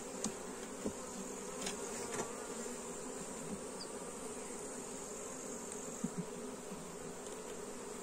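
Honeybees buzzing steadily around an opened hive as its frames are inspected, with a few faint clicks.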